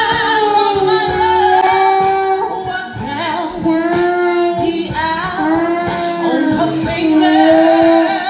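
Young girl singing a song, holding long sustained notes.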